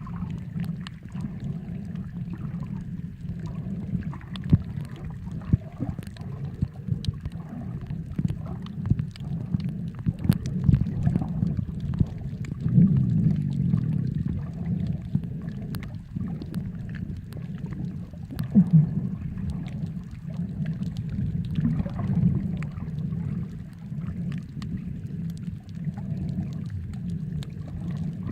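Muffled underwater ambience: a steady low rumble with many scattered clicks and pops, swelling louder twice in the middle.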